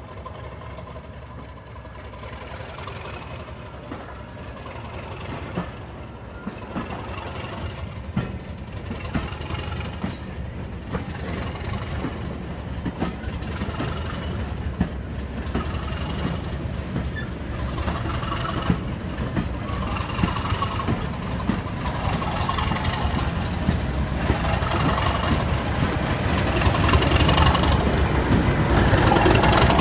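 English Electric Class 37 diesel locomotive, with its V12 diesel engine, running as it moves slowly along the platform road. It grows steadily louder as it draws near, with regular clicks from the wheels on the rails.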